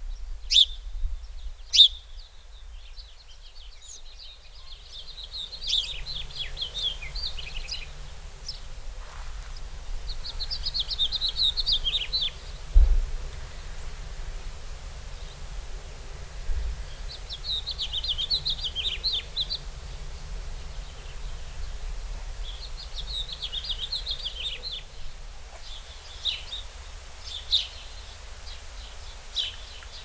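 A small songbird singing four twittering phrases of two to three seconds each, with single sharp chirps between them, over a faint low outdoor rumble. A single low thump comes about halfway through.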